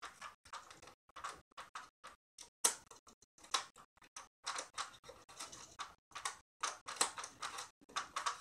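Irregular plastic clicks and short scrapes from an airsoft AK-47 being handled, its safety and parts being worked by hand.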